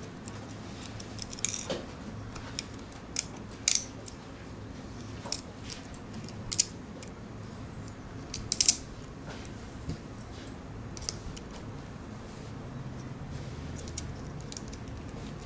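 Small screws and nuts clicking and clinking against the aluminium bracket and sensor as they are fitted by hand, then a small screwdriver turning a screw. The clicks are scattered and irregular, with a few sharper ones about one and a half, three and a half, and eight and a half seconds in, and they thin out after about eleven seconds.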